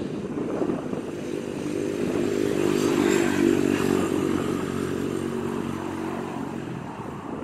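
A motor vehicle passing on the road, its engine hum swelling to a peak about three seconds in and fading away again.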